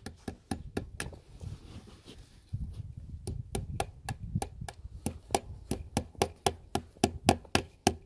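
Fencing hammer driving fence staples into a wooden fence post to hold the woven wire. A few scattered knocks come first, then from about three seconds in a steady run of sharp strikes at about three a second.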